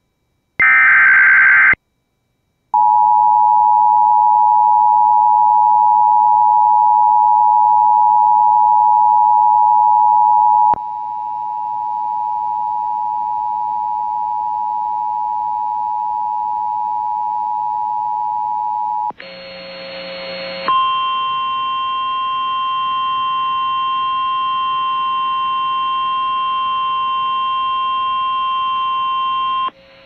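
Emergency Alert System tones: the last burst of the digital header's screechy data tones, a short gap, then the steady two-tone attention signal for about eight seconds. The tone then drops in level and goes on for about eight more seconds, a brief chord-like blip follows, and one steady alert tone holds until the warning message begins.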